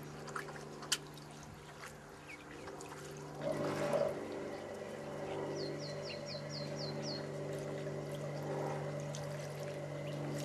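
Ducklings splashing and dabbling in a shallow tray of water, with small scattered ticks and a louder splash about three and a half seconds in. A steady low hum runs underneath, and a quick run of seven high chirps comes about halfway through.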